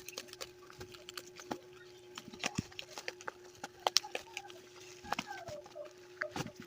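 Parcel being opened by hand: irregular clicks, taps and crinkles of the packaging being handled and torn open.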